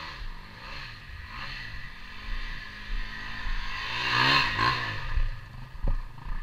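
KTM 250 EXC two-stroke enduro motorcycle revving up and down as it rides close past, loudest about four seconds in, then pulling away. A short knock near the end.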